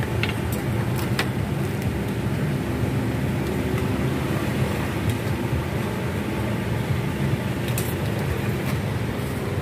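Steady low rumble of street traffic, with a few light clicks and taps from metal tongs and a plastic food box being handled.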